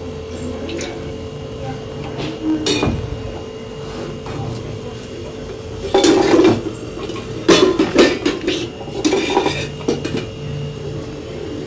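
Kitchen clatter of metal pots and utensils: short clinking bursts about three seconds in and again in a cluster from about six to nine and a half seconds in, over a steady hum.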